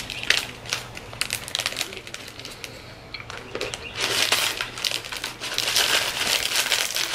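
Plastic inner wrapper of a Pepero snack box crinkling as it is handled, with scattered sharp crackles that turn into a dense stretch of crinkling about four seconds in.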